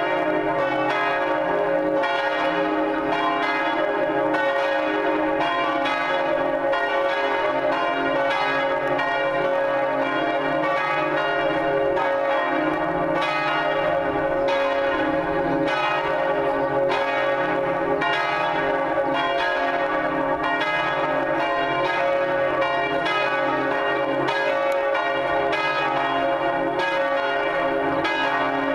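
Three Cornille-Havard church bells swinging together in full peal, their strokes overlapping in a steady, continuous ringing.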